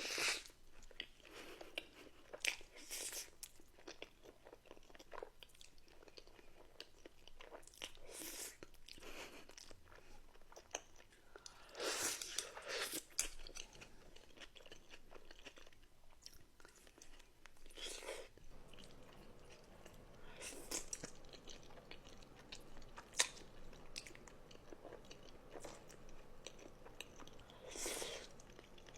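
Close-miked eating sounds: bites and chewing in irregular bursts, some of them crunchy.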